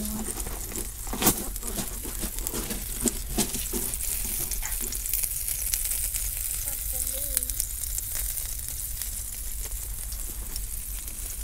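Scallops in their half shells sizzling on hot campfire coals, the butter melting and bubbling inside each shell like a little pan, with frequent small pops and crackles. One sharper crack comes about a second in.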